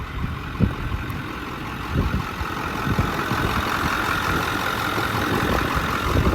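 A truck engine idling steadily, with irregular low thumps.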